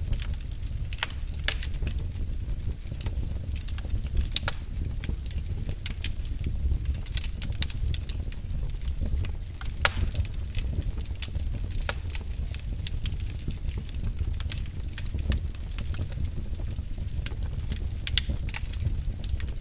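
Fire burning in a fireplace, crackling with irregular sharp pops over a low steady rumble.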